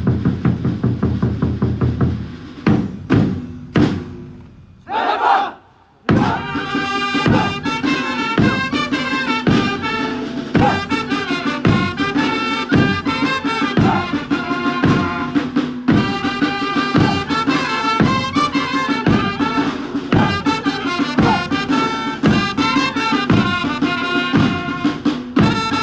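Background music: drum hits at first, a brief shout about five seconds in, then a tune over a steady beat.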